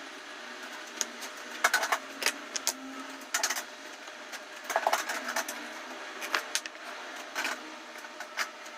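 Irregular clicks, knocks and clatter of hard objects being handled and set down, in small clusters a second or two apart.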